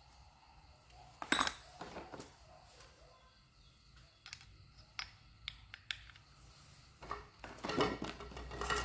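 Scattered clicks and light metallic clatter of a screwdriver and small parts against a Stihl MS 200 T chainsaw's housing as it is taken apart, busiest about a second in and again near the end.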